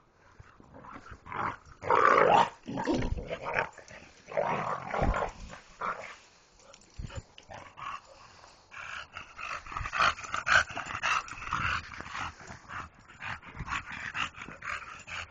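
A pit bull and a bulldog growling in bursts as they play-fight, the loudest burst about two seconds in and a busier stretch in the second half.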